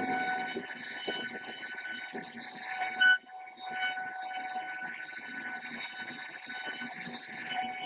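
CNC router spindle running with a steady high whine while its bit cuts into wood, with rough cutting noise underneath. About three seconds in there is a brief loud burst, then the cutting noise drops out for a moment before carrying on.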